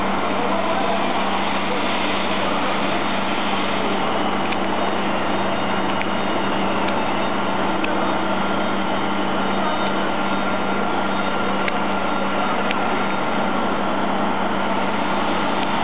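Steady machinery drone from a running magnesium oxide board production line, with a constant hum and a few faint clicks.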